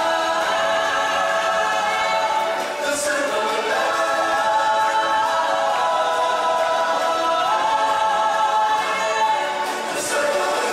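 Choir singing long held notes in harmony over backing music, moving to new chords a few times.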